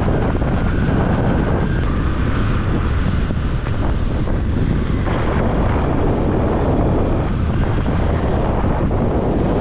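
Wind buffeting the microphone of a motorbike riding through rain: a steady, deep rush.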